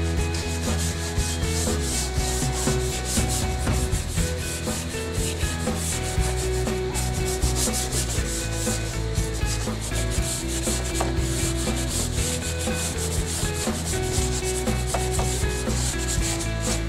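Hand sanding of a truck's steel cowl panel in rapid, continuous back-and-forth rubbing strokes, with the panel wetted from a bottle.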